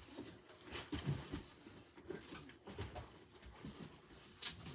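Faint scattered knocks and rustling as boxes and packaging are handled, with a sharper tap near the end.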